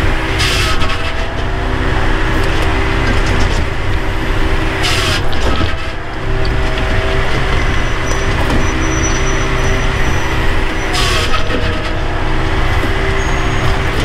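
Bells 4000 firewood processor's engine and hydraulics running steadily, heard from inside the operator's cab, with three short hisses: about half a second in, about five seconds in and about eleven seconds in.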